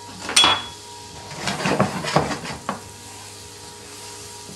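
Butter sizzling as it melts in a hot frying pan, with metal tongs clicking and scraping against the pan. There is a sharp knock about half a second in and a run of clicks and scrapes between about one and a half and three seconds.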